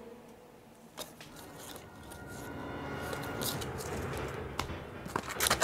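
Trading cards being handled on a table: a light tap about a second in, then soft rustling that grows louder, and a foil card pack starting to crinkle near the end.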